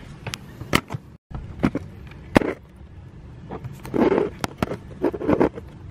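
A plastic jug being set down and shifted on the floor: scattered knocks and clicks, with short scraping bursts about four and five seconds in.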